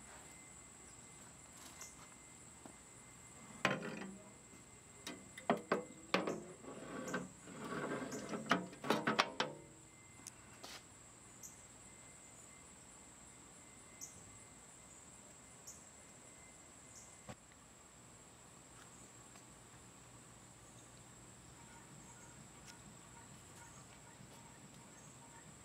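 Clinks, knocks and clattering of the antique hot air fan's cast-iron and sheet-metal parts being handled and set together, for about six seconds starting about four seconds in, then only a few isolated ticks. A steady high insect drone runs underneath.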